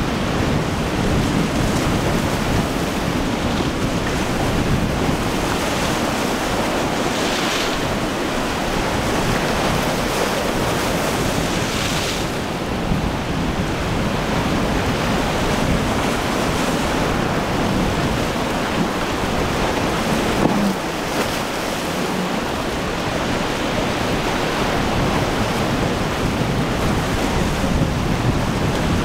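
Breaking surf and choppy sea with strong wind buffeting the microphone, a steady rushing noise. Two brief louder hisses of surf or spray come about seven and twelve seconds in.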